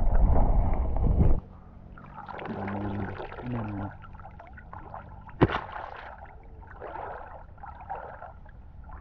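Loud, muffled water rumble from a camera held underwater, cutting off suddenly about a second and a half in. After it comes gentle splashing and sloshing of shallow water where a person is wading, with one sharp splash about five and a half seconds in.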